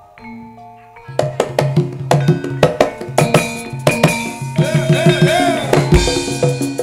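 Javanese gamelan playing tayub dance music. After soft held notes, the full ensemble comes in loudly about a second in, with rapid drum and struck metal notes in a fast rhythm.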